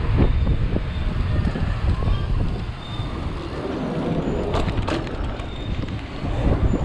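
Wind buffeting the microphone of a handlebar camera on a mountain bike at racing speed, over a steady rumble and rattle of the bike on street paving. Two sharp knocks come a little before the five-second mark.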